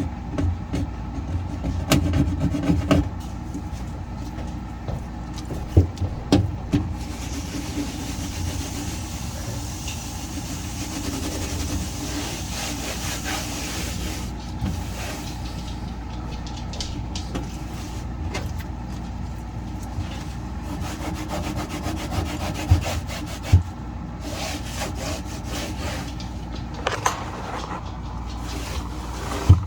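A cloth rubbing and scrubbing over fridge surfaces, with scattered knocks and clunks, over a steady low hum. The scrubbing is most continuous for several seconds in the middle.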